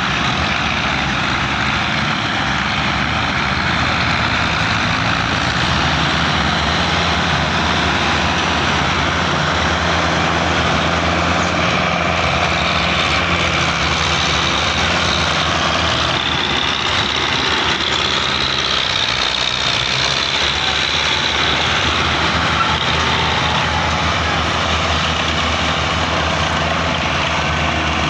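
Belarus tractors' diesel engines running steadily and loudly as they work to pull a trailer stuck deep in mud, with a faint higher whine rising and falling in the middle.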